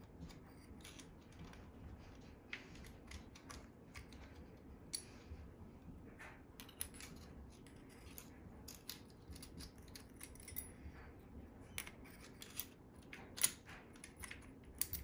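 Faint, scattered light metallic clicks and taps as a metal brake disc is slid by hand between the brake pads of an HPI Baja-platform RC car's brake caliper, with one louder click near the end.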